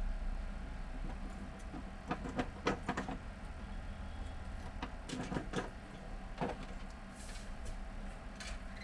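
Handling noise from work on a printer's scanner mechanism: scattered light clicks and knocks of small parts, in two clusters about two and five seconds in, over a steady low hum.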